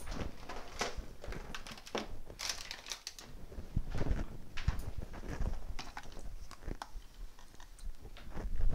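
Irregular light knocks, taps and rustles of household objects being handled and set down on a table: a cardboard cracker box, an apple and a small bottle.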